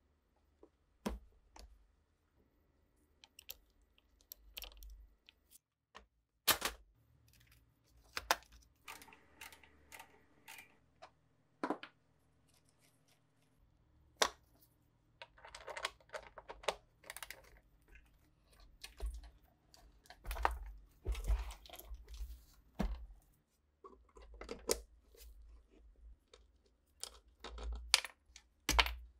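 Hand tools working on an old wooden sewing machine cabinet as it is taken apart: irregular sharp clicks and taps of metal on metal and wood, with short bursts of scraping and crackling, busiest in the second half.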